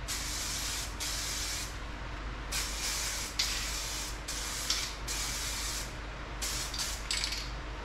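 Aerosol spray can of high-temperature paint hissing in a series of short bursts, each about a second or less, with brief pauses between, as light coats are sprayed on.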